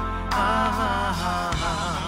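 Live band music with a male voice singing a held, wavering melody with vibrato over a steady bass.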